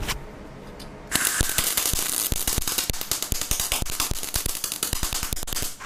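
MIG welding arc from a Bimarc MIG-500 welder popping and crackling in rapid, irregular bursts like machine-gun fire instead of burning smoothly. It starts about a second in and stops just before the end. The arc keeps shooting even with a new 1.2 mm contact tip and nozzle, which the repairer takes to mean that the welder's voltage is not keeping up with the wire feed.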